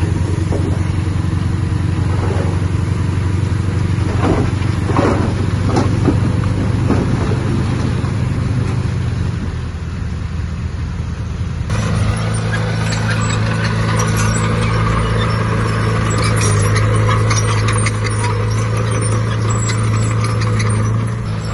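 Heavy diesel earthmoving machinery running steadily under load, with a few rising revs. After a sudden change about twelve seconds in, metallic clatter sounds over the engine.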